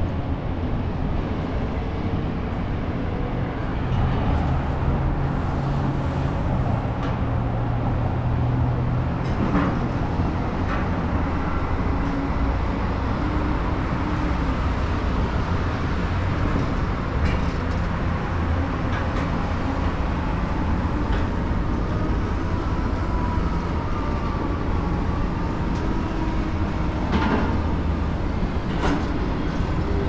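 Steady road traffic noise from passing cars, a continuous low rumble with a few brief clicks.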